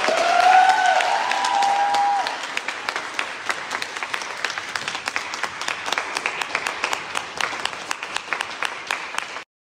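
Concert-hall audience applauding after a soprano aria with piano, the clapping dense and continuous. In the first two seconds one or two drawn-out gliding cheers sound over it. After that the applause is quieter, and it cuts off abruptly near the end.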